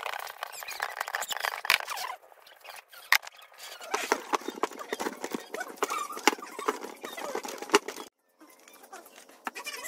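Hands mixing and kneading flour dough in a metal pan: a quick, uneven run of sticky clicks, slaps and scrapes of dough and fingers against the metal, breaking off briefly around two seconds and again near eight seconds.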